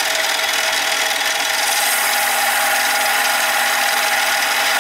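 Harbor Freight mini lathe running with a titanium bar spinning in the chuck, with a steady whine, while a heavier-grade abrasive pad is held against the turning metal to polish it, a steady rubbing hiss. The hiss gets brighter about two seconds in.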